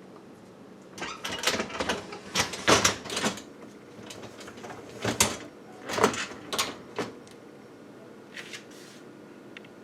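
Clicks, knocks and scrapes of a dishwasher rack and its rack adjuster parts being handled. They start about a second in, are loudest around three and six seconds, and die away to a few faint ticks near the end.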